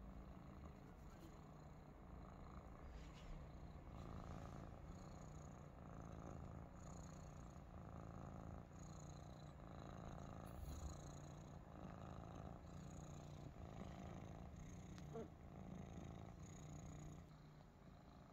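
Maine Coon kittens purring faintly, the purr swelling and easing with each breath.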